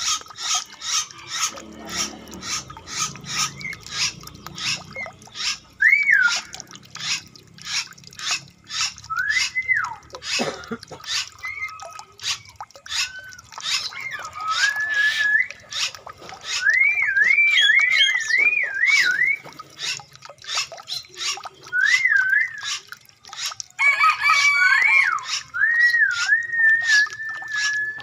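Birds singing: repeated whistled phrases that rise and fall, coming more often in the second half, over an even pulsing call about twice a second that runs all through.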